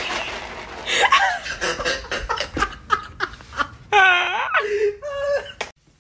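A person laughing hard in repeated bursts, with one long, high laugh that bends up and down about four seconds in; it cuts off abruptly just before the end.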